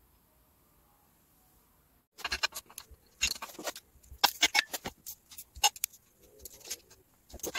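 Near silence, then from about two seconds in a quick, irregular clatter of metal clicks and clinks: bolts and a steel engine-stand mounting bracket being handled and fitted to a bare engine block.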